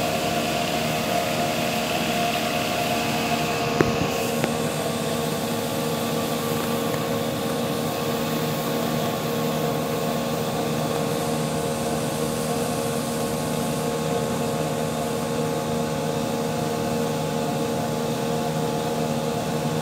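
Machine-driven rice-husk blower running steadily, conveying husk through a pipe and pouring it from a spout into a boat's hold: an even mechanical hum with a rushing hiss. A brief knock about four seconds in.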